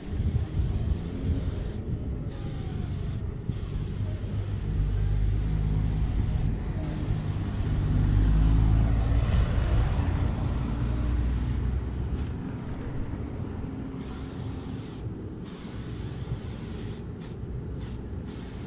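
Aerosol spray paint can hissing in repeated strokes, cutting off briefly between them, over a steady low rumble that swells louder through the middle.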